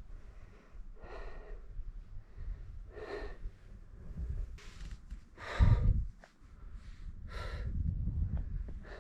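A hiker breathing hard, with heavy breaths about every two seconds over a low rumble on the microphone. The strongest breath comes about halfway through.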